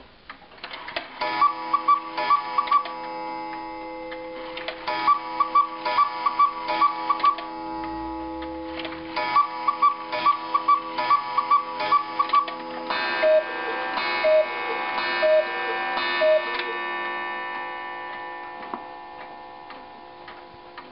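Antique quail and cuckoo clock sounding the hour. The bellows-driven quail call, a quick run of high piping notes with mechanism clicks, comes in several rounds. Then, about thirteen seconds in, the cuckoo gives its two-note call four times, about a second apart, with the movement ticking underneath.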